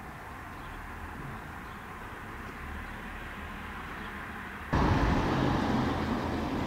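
Steady outdoor background noise with a low rumble that jumps suddenly louder about two-thirds of the way through.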